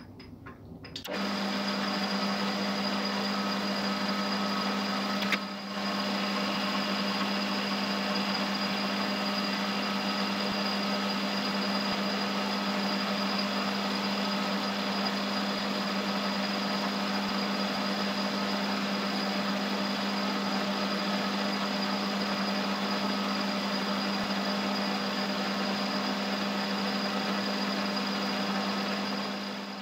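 Metal lathe running steadily with a constant hum, spindle and chuck spinning while it takes a light finishing pass on a soft metal bar held between chuck and live center. It starts about a second in, dips briefly around five seconds, and winds down at the very end.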